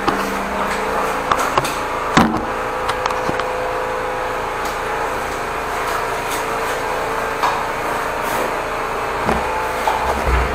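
High-pressure drain jetter running steadily with a constant hum, with scattered knocks and clatter over it as the line is jetted.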